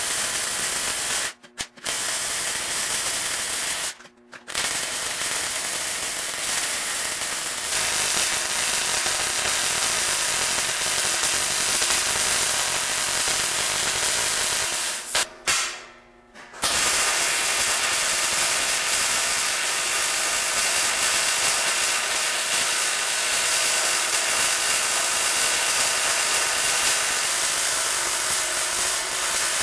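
Wire-feed welder arc crackling and hissing steadily as a bead is run along the seam of a steel patch panel. It breaks off briefly three times: near the start, about four seconds in, and about halfway through.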